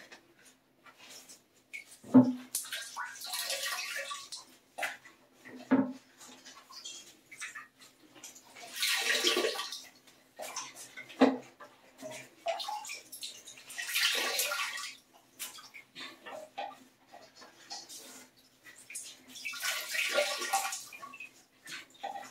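Water splashing and trickling in bursts about every five or six seconds as leftover water is sopped out of a drained toilet with a rag, with a few sharp knocks in between.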